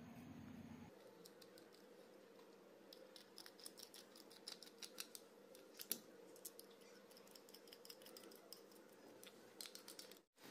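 Faint scattered clicks and scrapes of a small tool and fingertips working inside a crab's shell, scooping out the brain and eggs; otherwise near silence.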